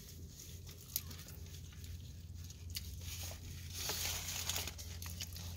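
Handling rustle of a paper napkin and coat sleeve close to the microphone, with a few small clicks and a louder rustle about four seconds in, over a low steady hum in a car cabin.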